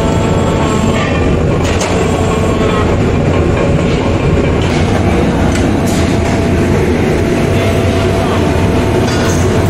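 Metalworking machinery running steadily with a dense, even clatter, a few faint steady tones and a handful of sharp metal clinks scattered through it.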